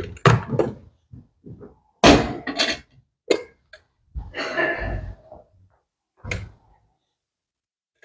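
A string of knocks and clunks, with a brief scraping rustle about halfway through: objects being handled and set down, close to the microphone.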